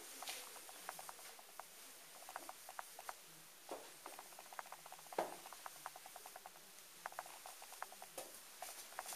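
Faint footsteps of a group walking slowly through a narrow hand-dug tunnel: irregular light taps and scuffs, with a few louder steps about a second in, around 4 and 5 seconds, and near the end.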